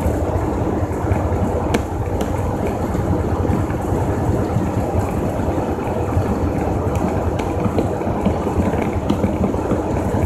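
Steady engine and road noise inside the cab of a truck cruising at highway speed, with a few faint clicks and rattles.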